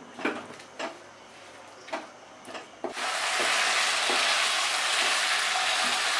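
A spatula stirring and scraping a pan of chopped banana blossom, prawns and potato being sautéed in masala, in a few separate strokes. About three seconds in, a loud, steady sizzle of frying starts suddenly and keeps on.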